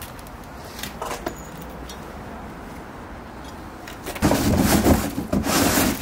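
A large cardboard shipping box scraping and rustling loudly as it is lifted off a pit bike's steel crate, starting about four seconds in after a few light clicks.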